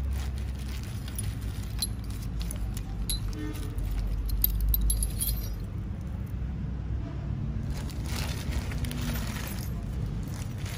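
Small steel cutting tools and gauges clinking against each other with a plastic bag rustling as they are handled. Scattered light clinks fill the first half, and a longer rustle comes near the end.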